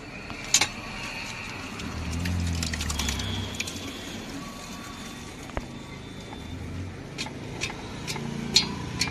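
A motor vehicle passing, loudest about two to three and a half seconds in, under sharp clinks of steel utensils against a steel pot: one just after the start and several in quick succession near the end.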